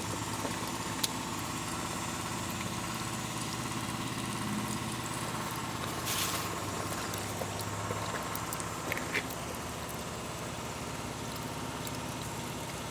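An engine idling steadily, a low even hum, with a short hiss about six seconds in.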